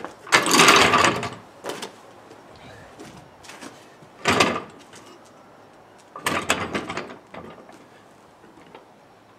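Steel trolley jack being wheeled across concrete and shoved into position under the car: three separate bursts of rolling, scraping and clunking metal. The first burst is the longest and loudest, about a second.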